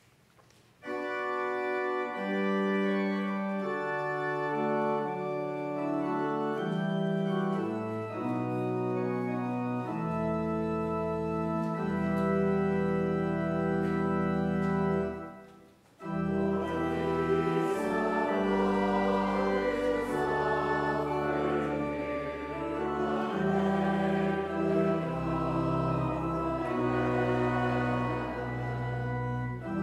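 Church organ playing a hymn introduction in held chords, with deep bass pedal notes joining about ten seconds in. After a brief break about halfway through, the congregation starts singing the hymn with the organ accompanying.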